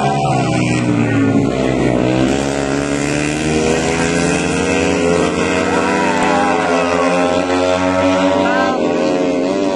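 Two Yamaha Jupiter MX underbone motorcycles, four-stroke single-cylinder engines, racing at high revs, their engine pitch climbing and dipping. Spectators shout over them.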